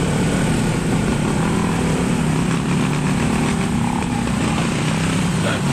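Motorcycle and scooter engines running steadily as a group of them rides along the road together.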